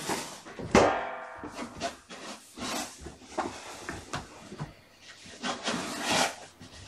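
Kittens playing: paws scampering on carpet and a run of knocks, rubs and rustles from toys and cat furniture, with one loud knock followed by a brief ringing about a second in.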